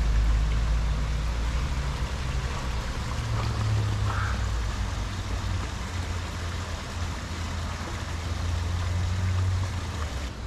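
Small waterfall trickling and splashing into a pond, with a steady low hum underneath that fades about a second before the end.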